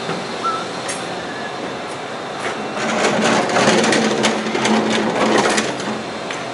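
Metal machine tool holders clinking and rattling in a yellow tool rack as it is handled. A dense clatter of quick clicks lasts about three seconds in the middle.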